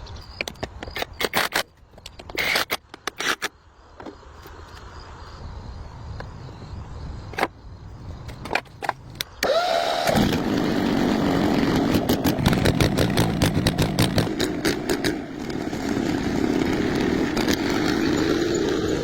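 A series of sharp clicks and knocks, then about ten seconds in a Kubota tractor's diesel engine catches and keeps running steadily.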